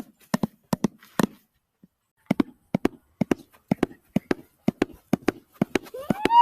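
Foley clip-clop of a horse's hooves: short knocks, mostly in close pairs at about two pairs a second, with a brief pause about a second and a half in. Near the end a high pitched voice-like call rises and holds.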